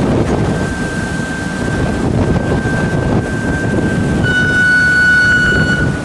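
Wind and sea noise rushing over the microphone on a trawler's deck, with a steady high whine through most of it that steps slightly lower in pitch and gets louder about four seconds in, then cuts off near the end.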